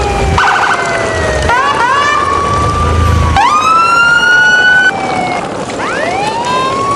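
Police-style siren wailing, its pitch sliding slowly down and then swooping back up in overlapping sweeps, with a brief rapid warble about half a second in.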